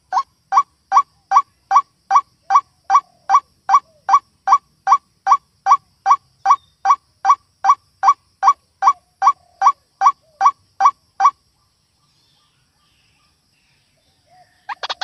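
White-breasted waterhen (ruak-ruak) calling: a recorded lure of loud, short, harsh notes repeated evenly about two and a half times a second. The series stops abruptly about eleven seconds in.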